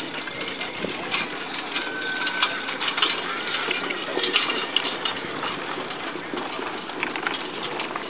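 Rattling and clinking of a horse-drawn cart and its harness as a Haflinger pulls it along, a dense run of small clicks and knocks.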